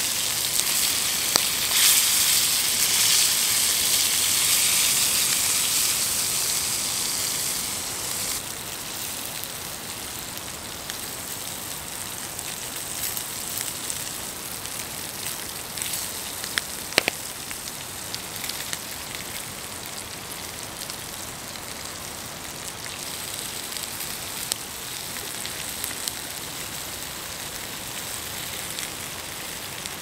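Sausages sizzling in a frying pan on campfire coals: a steady hiss, loudest for the first several seconds and then settling quieter, with scattered small crackles and one sharp click about halfway through.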